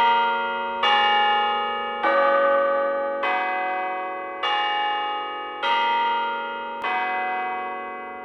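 Large tower bells struck one after another in a slow sequence of different notes, about one stroke every 1.2 seconds, each ringing on under the next. The last stroke fades away toward the end.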